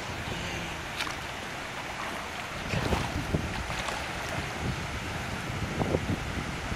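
Pool water splashing and sloshing as a swimmer tumbles through forward rolls, with louder splashes about three seconds in and again near the end, over steady wind noise on the microphone.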